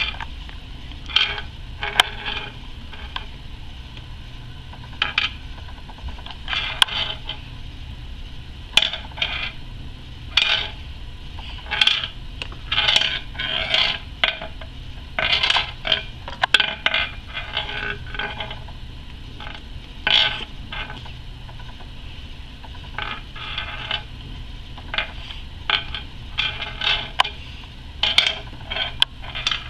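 Irregular short scrapes and taps of a small hard object against the glass of a lizard terrarium, coming in uneven clusters. A low steady hum runs underneath.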